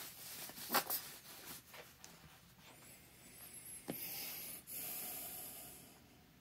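Light handling noises: a few small clicks and rubbing as a bottle of Loctite 243 threadlocker and a rag are handled at an engine's cylinder head studs, with a sharp click about four seconds in and a soft hiss of rubbing after it.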